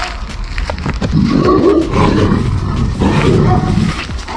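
A Central Asian Shepherd Dog (alabai) giving a low, rough rumbling growl in two stretches, starting about a second in.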